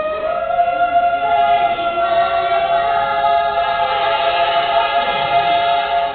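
A group of teenage girls singing unaccompanied, holding one long chord in several voices.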